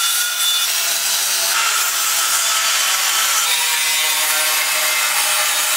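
Angle grinder with a thin cut-off disc cutting through sheet steel: a steady, high grinding hiss that stops abruptly near the end.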